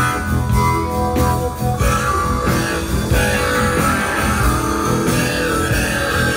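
Live rock band playing: electric guitar holding sustained notes over bass guitar and drums, loud and steady.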